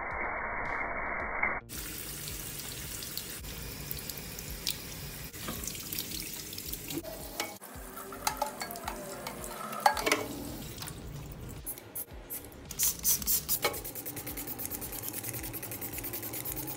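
Tap water running into a washbasin and over a metal cassette-deck chassis, with clicks and clatter as the part is turned in the hands. In the last few seconds comes rapid scrubbing of the soapy chassis.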